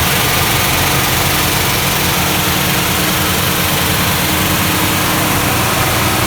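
A 1969 Plymouth Road Runner's 383 big-block V8 running loudly and steadily.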